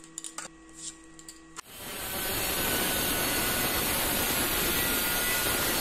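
A few faint taps, then about one and a half seconds in a Greenworks angle grinder spins up and cuts through 45×45 mm steel angle iron with a cut-off disc, a steady, even grinding noise.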